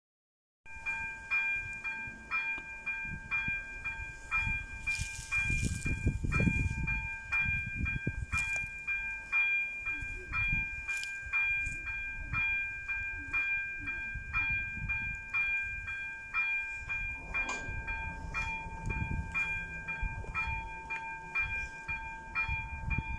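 Level crossing's ZV-02 electric warning bell ringing in fast, even strokes, signalling that a train is approaching. It starts just under a second in, over a low background rumble.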